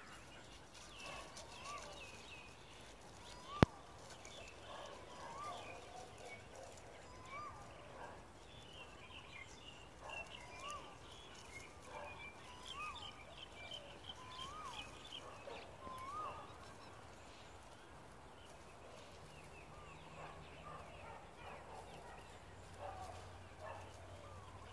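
Birds calling faintly in open country: a short rising-and-falling note repeated every second or two, with a spell of higher twittering chirps in the middle. A single sharp click sounds about three and a half seconds in.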